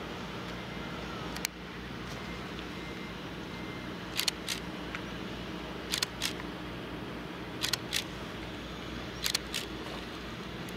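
A steady low mechanical drone, with short sharp clicks that come mostly in pairs: one click about a second and a half in, then a pair roughly every second and a half to two seconds.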